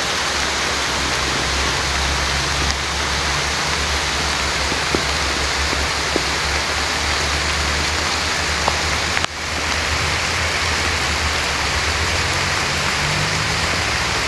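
Heavy tropical rain pouring steadily onto palm fronds, foliage and river water, a dense even hiss with a few faint drop ticks. The hiss briefly dips about nine seconds in, then returns.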